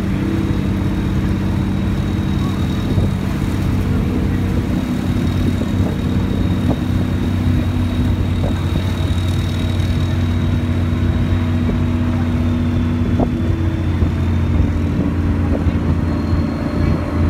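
Motorboat engine running steadily at cruising speed, heard from on board as a loud, even drone with a faint high whine over it.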